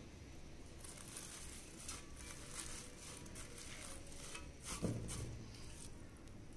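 Faint rustling of fresh mint leaves being dropped by hand from a steel bowl into a steel mixer jar, with one soft thump a little under five seconds in.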